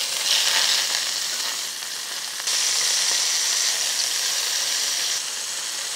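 Chicken breasts sizzling in hot oil in a stainless steel skillet while they are flipped with tongs. The sizzle swells about half a second in and again, louder, from about two and a half seconds to five seconds.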